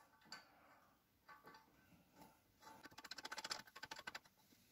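Faint clicks as a bolt is run into a wheel hub through the new brake rotor to hold it in place: a few light ticks, then a quick run of about ten clicks a second lasting a second and a half.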